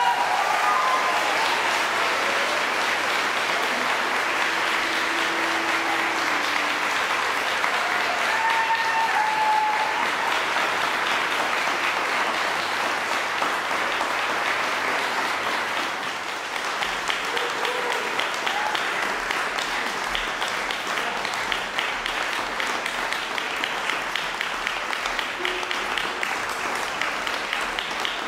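Concert audience applauding steadily, with a few brief voices calling out in the first several seconds. About halfway through, the clapping eases slightly and single claps stand out more.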